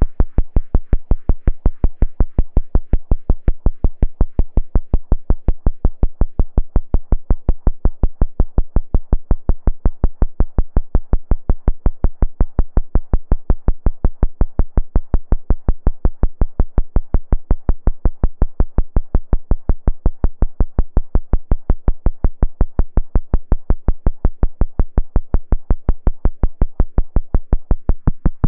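Moog Spectravox analog synthesizer, its oscillator run through its filter, playing a fast, even stream of short, decaying bass notes, about four or five a second.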